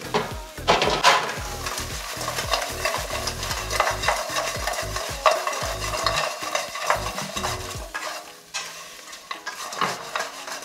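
Fried chicken wings and sliced vegetables being stir-fried in a hot skillet, sizzling, while a wooden spatula tosses them with frequent knocks and scrapes against the pan. The stirring eases off near the end.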